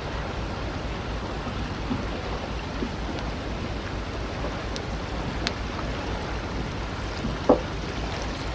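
Melting ice: a steady watery hiss with a low hum beneath it, dotted with faint ticks and one louder click about seven and a half seconds in.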